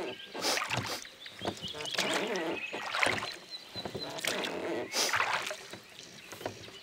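Oars of a rowboat being pulled through calm water: a splash and knock of the blades on each stroke, about once a second, easing off near the end as the rowing stops.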